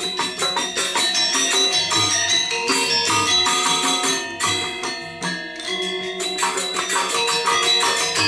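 Balinese gamelan ensemble playing Legong dance music: bronze metallophones and gongs in rapid, dense interlocking strokes, with jingling cymbals and drum.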